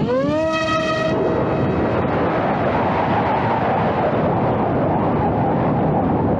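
Electric motor and propeller of a model flying wing spinning up with a quickly rising whine that levels off and fades after about a second and a half, followed by heavy wind rushing over the microphone.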